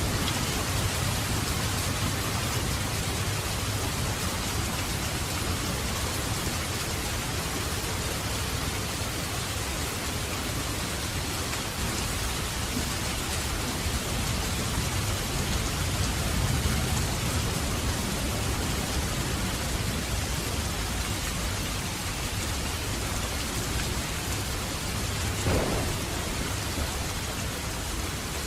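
Steady heavy rain falling, with low rolling thunder swelling and fading beneath it, and a brief sharp crackle about 25 seconds in.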